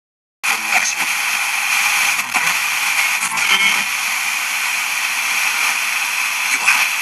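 Portable multiband radio receiver hissing with FM static as its tuning wheel is turned by hand between stations. The hiss cuts in suddenly about half a second in, with a few short clicks and brief faint voice fragments from passing stations.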